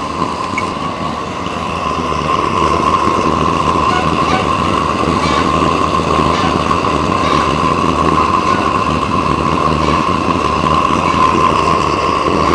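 Small metal-melting furnace's burner running steadily with a constant high hum, heating a crucible of copper that is not yet melting. The owner suspects the furnace does not get hot enough to melt copper.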